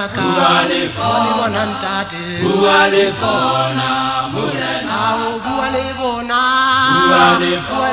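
Male gospel vocal group singing a Sesotho hymn in harmony, with a long held chord near the end.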